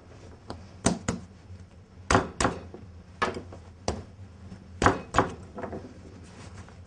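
Hands slapping and pressing bread dough on a wooden worktop while shaping a baguette: about nine sharp slaps, several in quick pairs, over the first five seconds or so.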